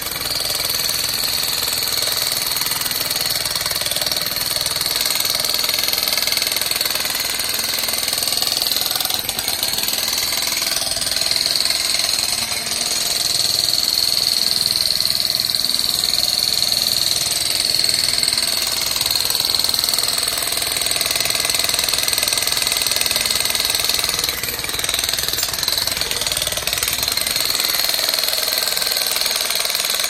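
Jackhammer pounding and breaking up rocky ground, running steadily with a couple of brief pauses.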